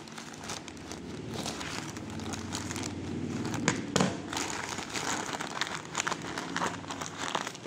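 Plastic courier mailer crinkling and rustling as it is cut open with scissors and pulled apart: an irregular run of crackles, with a couple of sharper clicks about four seconds in.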